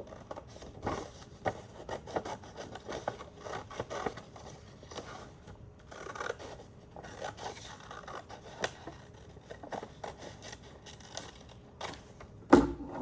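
Scissors cutting paper in short irregular snips, with the paper rustling as it is turned. A sharp knock comes shortly before the end.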